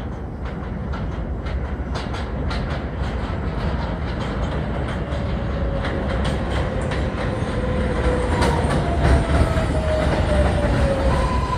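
Kawasaki R142A subway train approaching the station, its rumble growing steadily louder with wheels clicking over rail joints. A whine falls in pitch as it slows, and a steady higher whine starts near the end.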